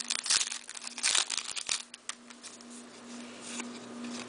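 Shiny wrapper of an O-Pee-Chee hockey card pack crinkling and tearing as it is pulled open by hand: a quick run of crackles for about two seconds, then quieter rustling.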